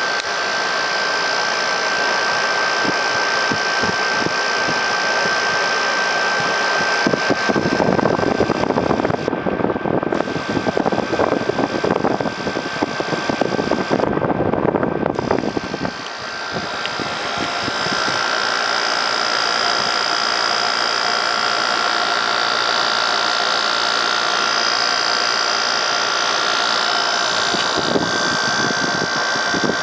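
Haier 5200 BTU window air conditioner running with its case off and the fan on high speed: a steady whir of the blower and condenser fan over the running compressor. From about eight to sixteen seconds in the sound grows louder and rougher, then settles back to the steady whir.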